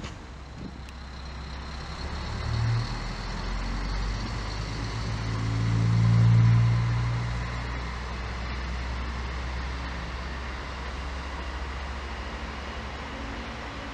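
ČD Regionova diesel railcar passing close by. Its engine hum swells to its loudest about six seconds in, then settles lower as the railcar pulls away.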